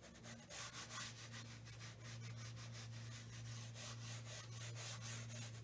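Flat watercolour brush rubbing across watercolour paper in repeated short strokes, a faint scratchy brushing, over a steady low hum.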